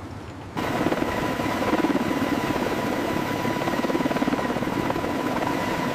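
Helicopter running overhead, its rotor chopping rapidly over a steady engine whine. The sound cuts in suddenly about half a second in.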